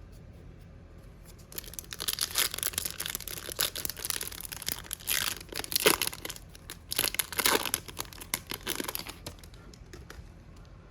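Crinkly plastic wrapper of an Upper Deck MVP hockey card pack being torn open and crumpled by hand, in a run of uneven crackling bursts that starts about a second and a half in and dies away near the end.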